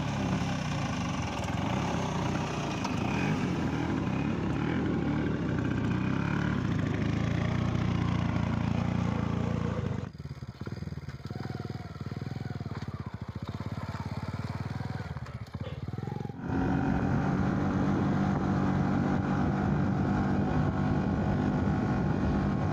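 Bajaj Chetak scooter's two-stroke single-cylinder engine running steadily. About ten seconds in it gives way to a quieter, uneven stretch from a stopped Hero Honda Splendor motorcycle's engine. For the last several seconds the Chetak's engine runs steadily again as the scooter is ridden.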